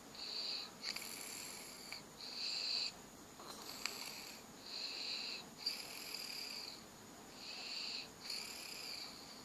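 Sleep snoring with a high-pitched whistle on each breath, the bursts coming one after another, each under a second long with short gaps between them.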